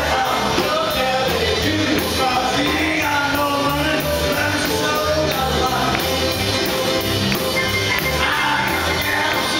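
Live rockabilly band playing a song: a man singing over a drum kit and an upright bass with a steady beat.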